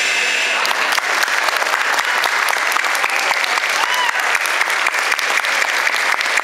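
Audience applauding, the clapping coming in about half a second in and running dense and steady.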